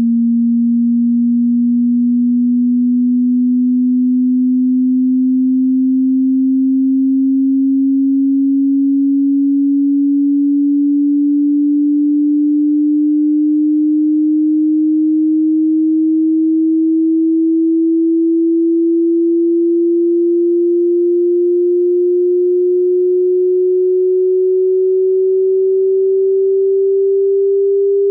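Pure sine-wave test tone from a 20 Hz to 20,000 Hz hearing-test sweep, gliding slowly and evenly upward in pitch through the low range at a steady level.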